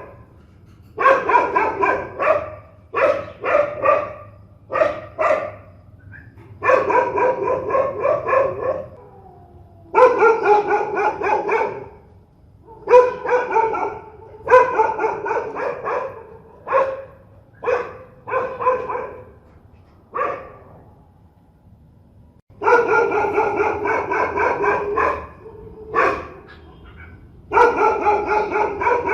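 A dog barking fiercely in quick runs of barks. Each run lasts one to two seconds, with short pauses between them and a longer lull about two-thirds of the way through.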